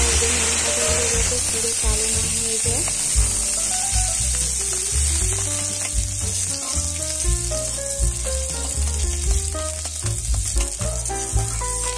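Neem leaves sizzling as they fry in hot mustard oil in a steel kadai, stirred with a spatula; the sizzle is strongest in the first half and eases later. Background music plays underneath.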